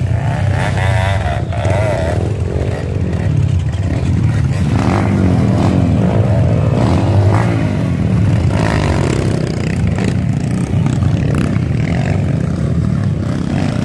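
Several trail dirt bike engines running, their revs rising and falling again and again over a steady low rumble.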